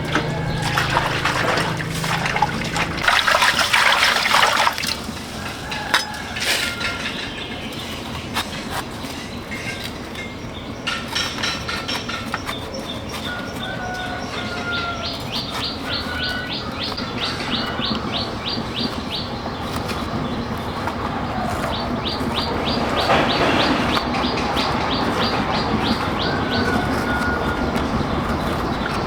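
Farmyard birds chirping, with runs of rapid, evenly repeated high notes like trills, twice in the second half. Near the start there is a short, louder noisy burst lasting about two seconds.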